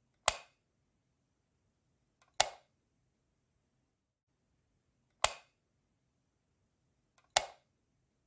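A light switch clicking four times, about two to three seconds apart. Each click is a single sharp snap with a brief fading tail. The second and fourth clicks each have a faint tick just before them.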